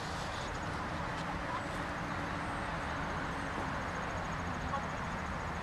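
Steady outdoor background noise, with a faint, high, rapidly pulsing trill that drops out for a while near the middle.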